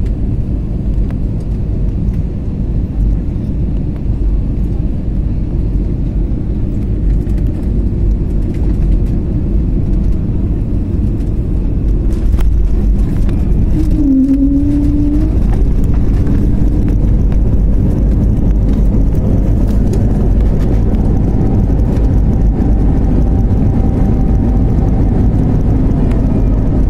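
Jet airliner cabin noise during landing: a steady engine and airflow roar through touchdown and the roll along the runway. About halfway through, a whining tone dips and then rises, and the roar grows a little louder as the engines spool up on the landing roll.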